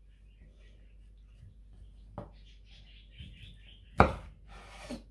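Kitchen knife cutting a boiled bamboo shoot on a wooden cutting board: a light tap about two seconds in, then a sharp knock of the blade on the board about four seconds in, the loudest sound, followed by a brief rasp of the slice.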